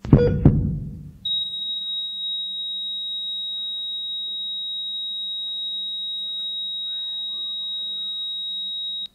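A heavy thump fades away, then about a second in an ECG heart monitor's flatline alarm starts: one steady high tone that holds unbroken and cuts off suddenly near the end. The unbroken tone signals that the heart has stopped beating, the sound of a life coming to an end.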